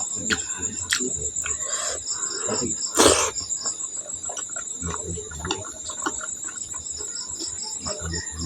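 Crickets chirping steadily in the background, a continuous high trill with an even pulse. Over them come close-up eating noises: scattered mouth clicks and low thumps of chewing, with one loud, short noise about three seconds in.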